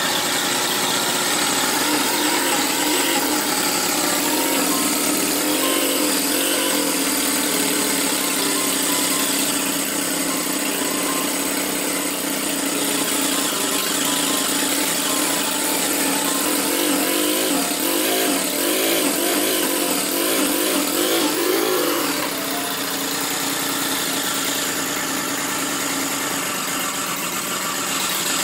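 Miniature single-cylinder model engine running steadily. About two thirds of the way through, its speed wavers up and down, then it settles into a slightly quieter run.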